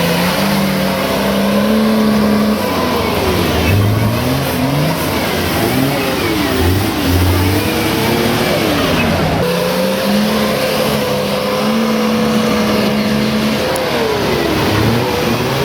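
Nissan Patrol Y61 4x4's engine working under load off-road, revving up and down repeatedly with its pitch rising and falling, and holding steady revs for a few seconds in the middle.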